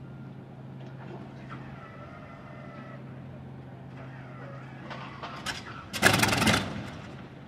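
Engine start on a Bf 109 E-3's Daimler-Benz DB 601 inverted V12: a steady hum from the starter as the propeller is turned over, a few sharp pops about five seconds in, then the engine fires with a loud burst about six seconds in that fades within a second.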